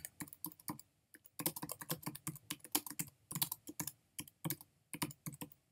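Typing on a computer keyboard: a quick, irregular run of key clicks, with a short pause about a second in.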